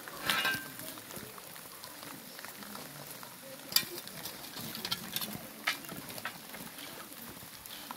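Fire-heated stones hissing and crackling on wet banana leaves over food in a mumu earth oven. A louder hiss comes about half a second in, followed by scattered sharp crackles and clicks.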